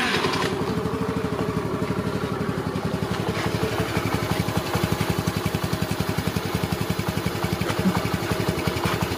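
Small motorcycle-type engine idling steadily with a rapid, even beat: an engine sound laid in for the hand-pushed toy quad bike.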